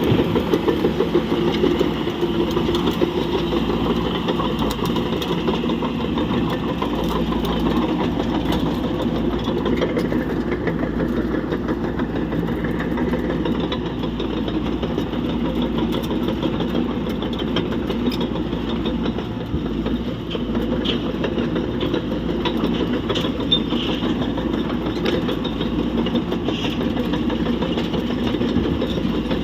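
Heavy diesel engine of construction machinery running steadily at a low idle, a continuous drone with a few faint clicks.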